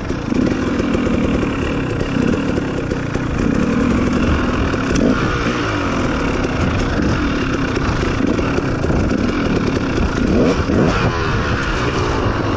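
Off-road dirt bike engine running under throttle while riding, the revs rising and falling about ten seconds in.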